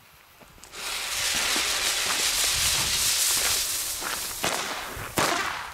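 A lit firecracker hissing as it sprays sparks, starting under a second in and running for about four seconds, with a few sharp cracks near the end.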